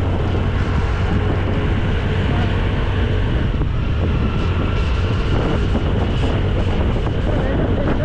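Wind buffeting the microphone while riding a Honda Dio scooter, its small single-cylinder engine running steadily underneath.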